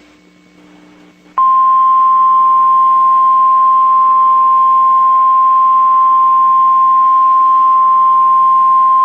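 NOAA Weather Radio 1050 Hz warning alarm tone: a single loud, steady high tone that switches on abruptly about a second and a half in and holds without change. It is the signal that an emergency alert broadcast is about to follow.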